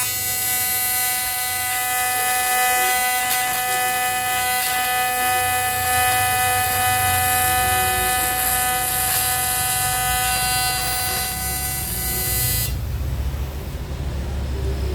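Steady electric buzz at one fixed pitch, typical of an AC TIG welding arc on an aluminium motorcycle engine case, cutting off suddenly near the end.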